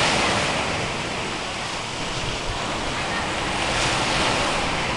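Sea surf washing onto the shore with wind buffeting the microphone, a steady rushing hiss that swells at the start and again about four seconds in.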